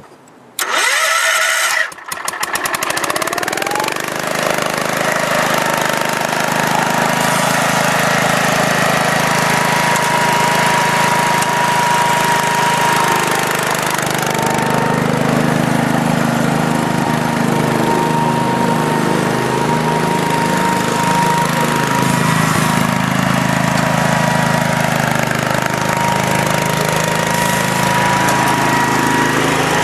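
Wheel Horse C101's 10-horsepower cast-iron single-cylinder Kohler engine starting up near the beginning, then running steadily, with a thin steady whine over it.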